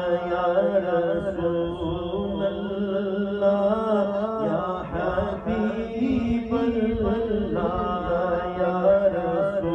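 Male voice singing an Urdu naat through a microphone and PA, with long, ornamented gliding phrases over a steady low drone, and no instruments.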